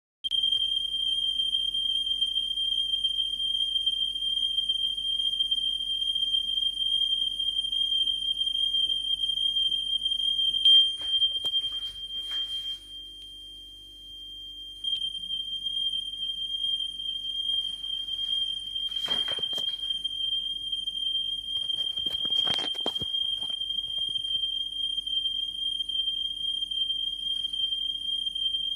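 Steady high tone of about 3.2 kHz from a smartphone's tone-generator app, carried round on a spinning record player, its pitch rising and falling slightly with each turn: the Doppler effect. A few brief rustling noises break in near the middle.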